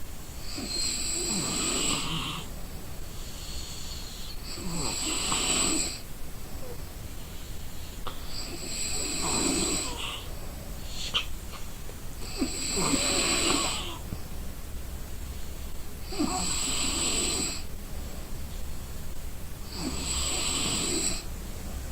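A sleeping person snoring: six snores about four seconds apart, each lasting about a second.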